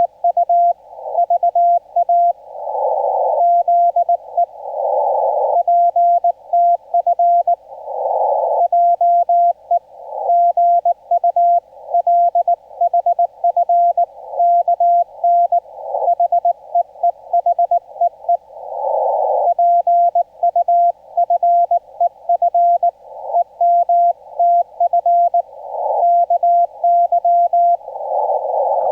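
Morse code (CW) on an amateur HF transceiver: a single tone of about 700 Hz keyed in rapid dots and dashes, sending Korean-language Morse. Between characters and words, hiss from the radio's narrow receive filter fills the pauses.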